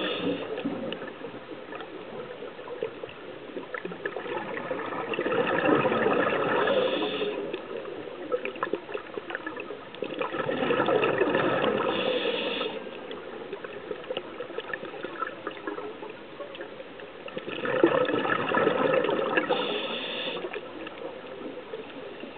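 Scuba diver's regulator exhaust bubbling underwater in three long bursts of exhaled bubbles, about six seconds apart, with faint clicking in between.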